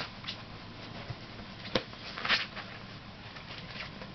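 Six-week-old Bengal kittens playing: scattered light taps and scuffles, with a sharp click a little under two seconds in and a louder scuffle just after two seconds.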